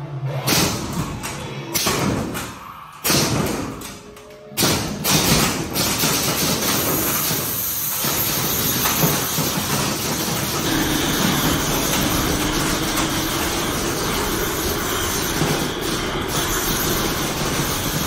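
Distortions Unlimited Mutant animatronic running its routine. Its pneumatic moves give several sharp hissing bursts with short gaps over the first few seconds, mixed with its horror sound effects. Then comes a long steady hiss of air and mist blasting out.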